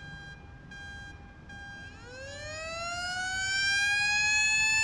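A siren sound effect. A steady held tone for the first two seconds, then a siren that winds up, rising in pitch and getting louder, and levels off high near the end.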